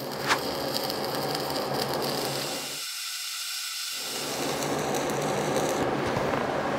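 Stick-welding arc crackling and sizzling steadily as a 3/32 6013 electrode runs a vertical-up fillet bead at about 80 amps. The lower part of the sound drops out for about a second midway.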